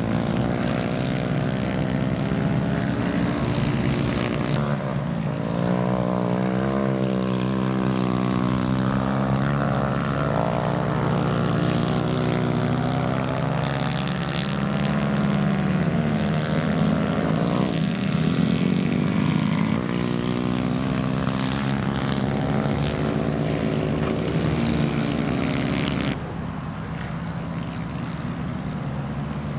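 Several racing kart engines running together on track, their pitches rising and falling as the karts accelerate and brake through the corners. The sound drops somewhat near the end.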